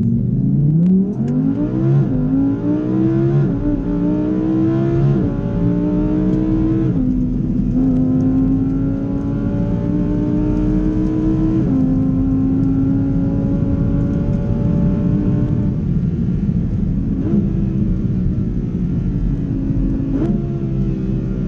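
Lamborghini Huracán Evo's naturally aspirated V10 heard from inside the cabin under hard acceleration. The engine note climbs in pitch through several quick gear changes in the first seven seconds, then pulls in one long steady rise and eases off. Near the end come two short rises in revs.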